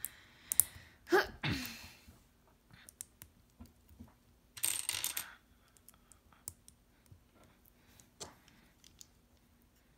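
Small plastic LEGO plates and bricks clicking and clattering as they are handled and sorted on a wooden table. The sound is scattered sharp clicks, with a longer rattle about five seconds in.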